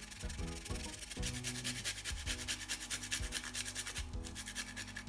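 Fresh ginger grated on a small handheld metal grater: rapid back-and-forth rasping strokes, with a brief pause about four seconds in.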